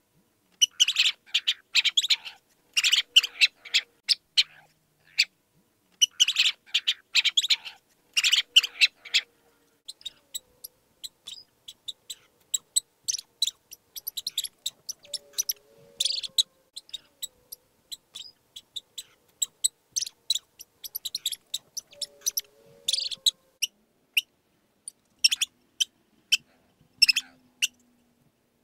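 Mice squeaking: short, high-pitched chirping squeaks in quick clusters, dense for the first nine seconds or so, then sparser and more scattered.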